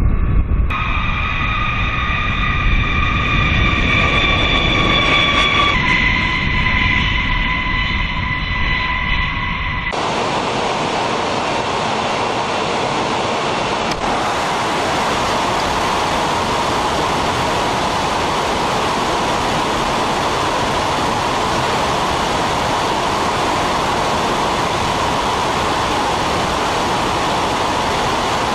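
B-52 bomber's eight jet engines whining over a low rumble on the landing rollout, the whine shifting pitch twice. About ten seconds in it gives way suddenly to a steady, loud rush of air through the open bomb bay in flight.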